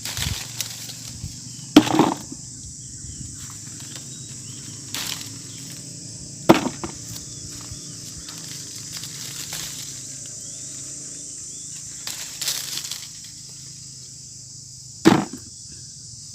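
Insects buzzing steadily in a high, even drone. Over it come several short knocks and rustles of hands picking and handling green mangoes, the sharpest about two seconds in and near the end.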